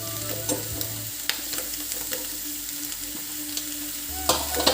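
Chicken sizzling as it dry-fries in a kadai on high flame with no oil, with the spatula knocking and scraping against the pan now and then.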